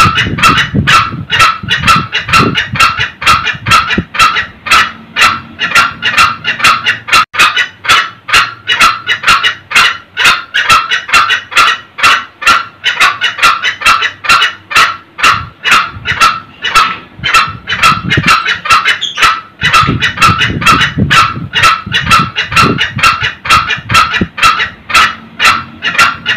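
Green junglefowl cackling: a rapid, unbroken series of sharp 'kek' calls, about three to four a second.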